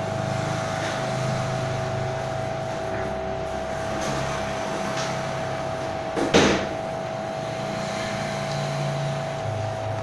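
Workshop background: a steady high-pitched hum under a low engine-like rumble that rises and falls, with one sharp knock a little over six seconds in.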